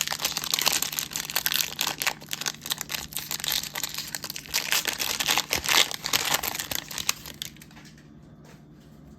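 A trading-card pack's plastic wrapper being torn open and crinkled by hand, a dense run of crackles that dies down near the end.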